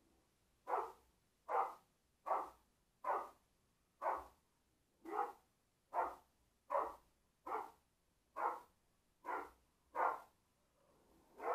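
A dog barking in a steady series of single barks, about one every 0.8 seconds, at a radio-controlled car.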